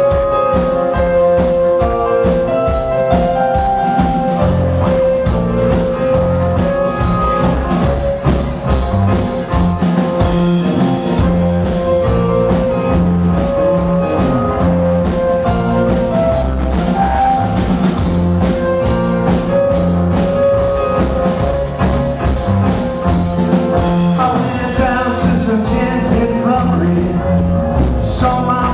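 A live band playing a slow blues number: drum kit with cymbals and drums, over a long steady held note.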